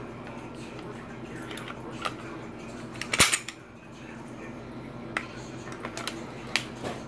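Smith & Wesson SD9 VE pistol being reassembled: scattered metal-and-polymer clicks as the slide is handled, with one loud clack about three seconds in as the slide goes onto the frame.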